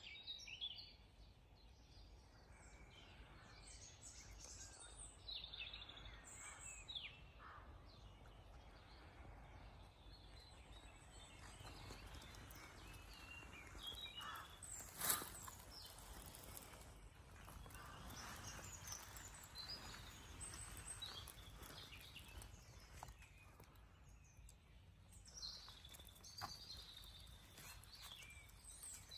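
Quiet woodland ambience with scattered short bird chirps and calls, and one sharp snap about halfway through.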